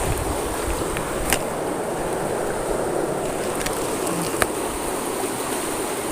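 Fast-flowing river water rushing steadily, with a thin high tone held above it. Two sharp clicks cut through, one just over a second in and one past four seconds.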